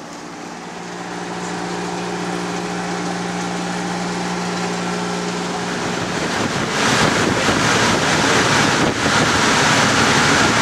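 Steady engine hum of a 4WD heard from inside its cabin, then from about six and a half seconds in, louder rushing water and wind buffeting the microphone aboard a vehicle barge.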